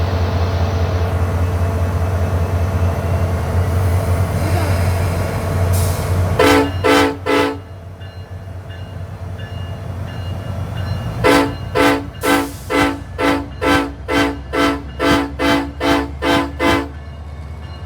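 SunRail commuter train's horn sounding in short blasts for a horn show: three quick toots about six seconds in, then a run of about a dozen rapid toots, roughly two a second, from about eleven seconds. Under it runs the steady low rumble of the train.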